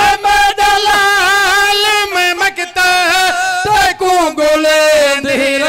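A man's voice singing a noha, the Shia lament, unaccompanied. He holds long high notes that waver and curl in pitch, then drops to a lower held note about four seconds in.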